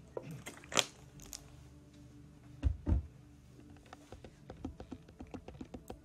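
Scattered clicks and taps in a small room: a sharp click about a second in, two dull thumps near the middle, then a quick run of light taps, several a second, near the end.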